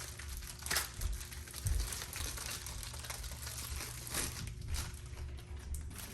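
Packaging crinkling and rustling as it is handled, with a few sharper knocks about a second, two and four seconds in.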